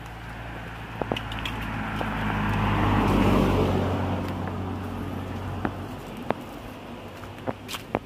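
A motor vehicle passing nearby: a low engine hum and tyre noise that swells to a peak about three seconds in, then fades away. Scattered footsteps and twig crackles on a dirt path run through it.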